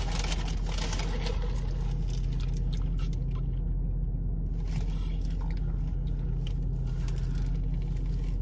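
Steady low hum of a car running while parked, heard inside the cabin, with a few faint rustles and clicks.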